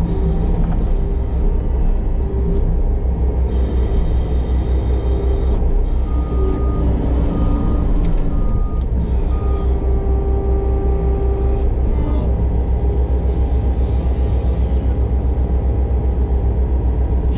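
Diesel engine of a Case TV450 compact track loader fitted with a Fecon forestry mulching head, running steadily. Thin whines and stretches of brighter rushing noise come and go over the engine's rumble.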